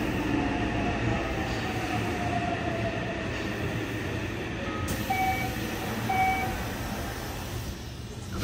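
Running sound inside a Yokohama Municipal Subway 4000 series car with Mitsubishi hybrid SiC-VVVF control: rumbling wheel and rail noise, with the traction motor whine falling in pitch as the train slows. Two short beeps come about a second apart past the middle, and there is a thump at the very end.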